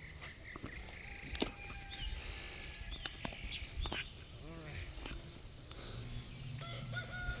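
Chickens calling, with a few sharp clicks and knocks in the first half. Near the end a rooster starts a long, drawn-out crow.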